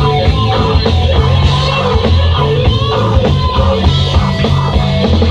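Live rock band playing loud, with guitar, a bass line moving in held notes and steady drums.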